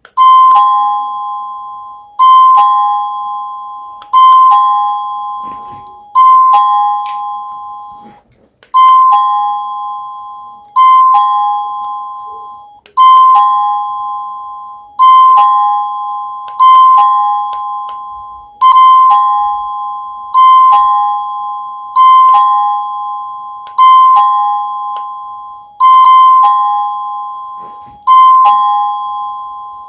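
Cacazi HYA10 wireless doorbell receiver playing a two-note ding-dong chime, a higher note followed by a lower one, each ringing out and fading. The chime repeats about every two seconds, some fifteen times.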